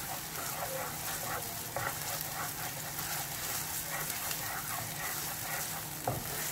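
Diced onion sizzling in oil in a nonstick frying pan while a wooden spatula stirs and scrapes it in a repeating rhythm, with a sharp knock near the end.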